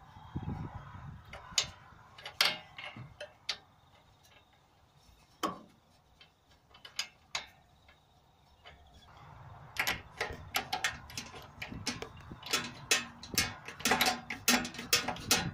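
Sharp metallic clicks as a new spark plug is screwed into a small petrol engine's cylinder head and a spark plug socket is fitted over it to tighten it. The clicks come singly at first and turn into a quick, irregular run over the last five seconds or so.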